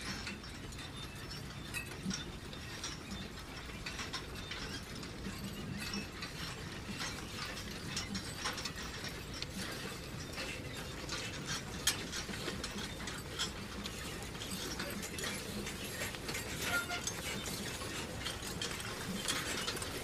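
Manure spreader's mechanism running: a steady low rumble with rapid, irregular clicking and rattling.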